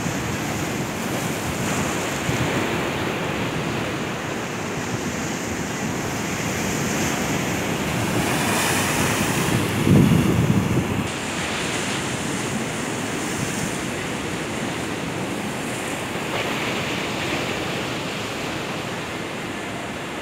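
Sea waves breaking and washing over shoreline rocks, a steady surf noise with a louder surge about halfway through, and wind buffeting the microphone.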